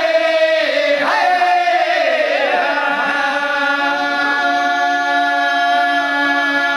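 Unaccompanied voices singing a Dogri bhakh, a traditional folk chant of long, drawn-out held notes that slide slowly between pitches.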